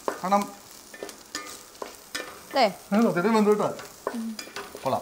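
Onions frying in a steel pan, stirred with a wooden spatula, with clicks and scrapes of utensils against the metal pots. Short bursts of a person's voice come about half a second in and again in the middle; these are the loudest sounds.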